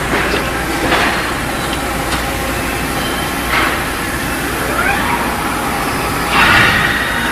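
Friction welding machine running with a steady mechanical noise, broken by several short rushing surges and a rising whine about halfway through. The loudest surge comes near the end.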